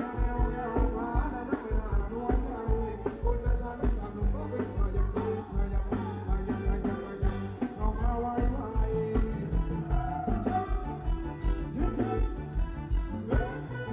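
Live band playing an upbeat Thai ramwong dance song, with a steady kick-drum beat under the melody.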